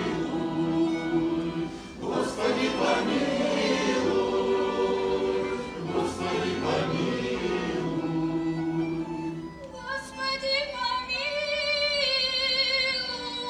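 A choir singing sustained chords, which about ten seconds in gives way to a single high voice singing with vibrato.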